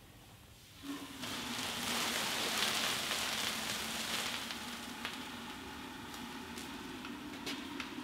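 Liquid nitrogen poured into a room-temperature glass electric kettle, hissing as it boils off violently on contact with the warm kettle. The hiss starts about a second in, is loudest a couple of seconds later, then settles to a steadier level with a few small clicks.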